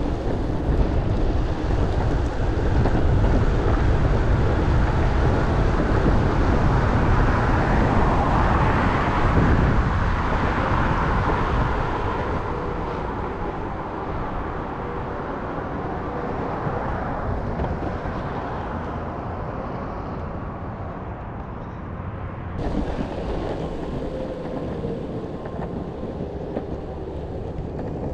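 Wind buffeting the microphone over the rolling rumble of an electric skateboard's 4-inch rubber wheels on rough asphalt, louder for the first dozen seconds, then easing off.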